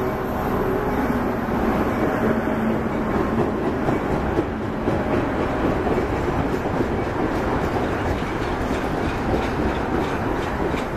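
Metra stainless-steel bilevel commuter cars rolling past at speed: a steady rumble of wheels on the rails, with clicking from the wheels that grows more noticeable toward the end.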